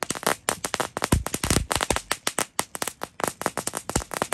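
Magic whip firecrackers on concrete, going off in a rapid, irregular string of sharp pops, many a second.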